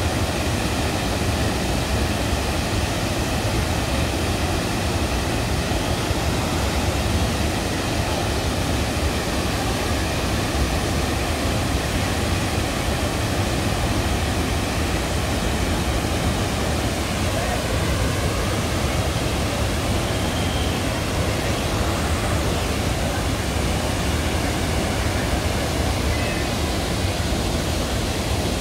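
Water pouring over a large waterfall, a loud, steady, even rush of falling water.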